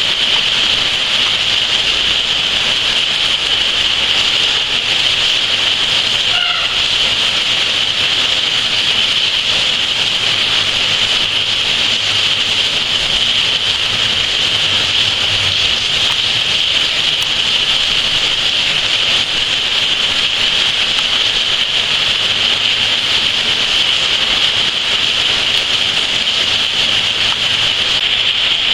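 Steady, heavy rain falling, a loud even hiss with no break. About six seconds in, a brief faint pitched sound shows over it.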